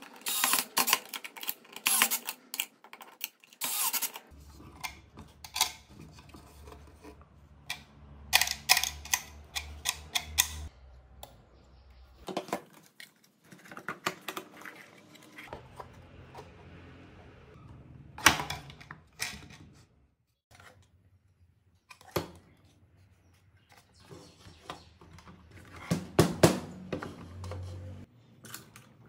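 Hand-work noises on a workbench: screws, tools and a plywood box with steel hinges being handled, giving an irregular run of clicks, clacks and knocks. A low steady hum sits under two long stretches, the first from about four seconds in to about twelve, the second from about fifteen seconds in to near the end.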